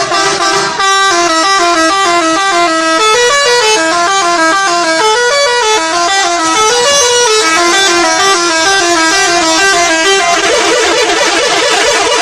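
Bus telolet horn, a multi-trumpet musical air horn, playing a loud melody of short notes that step up and down in pitch; about ten seconds in, the notes blur into a faster warbling trill.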